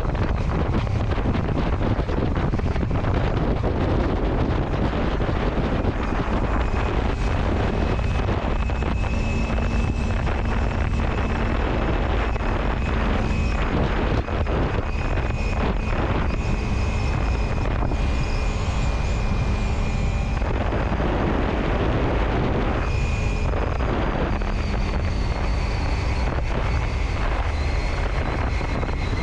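A vehicle travelling on the road, with steady wind rumbling on the microphone over the road noise. A faint high whine comes in about six seconds in and fades about twenty seconds in.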